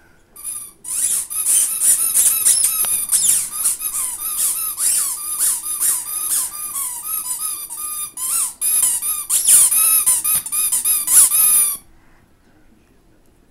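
Rubber squeaky dog toy squeaking over and over as a small dog chomps on it, about two high-pitched squeaks a second, stopping suddenly near the end.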